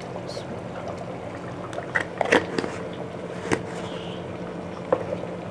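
Curry simmering in a steel pot with a steady hum under it, and a few sharp clicks of a plastic spoon tapping the pot between about two and five seconds in.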